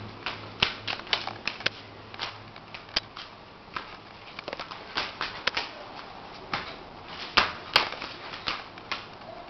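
Irregular light clicks and taps, one to three a second, a couple of louder ones about seven and a half seconds in: a shih tzu's claws on a hard floor.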